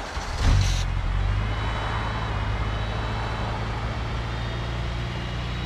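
Honda Civic Si's K24A four-cylinder engine starting from cold in freezing weather. The starter cranks, the engine catches about half a second in with a loud surge, then settles into a steady idle. It is a hard cold start.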